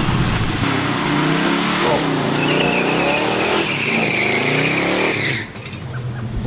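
Car doing a burnout: the engine revs up and down while the tyres squeal in a high screech that slowly falls in pitch. Both cut off about five seconds in.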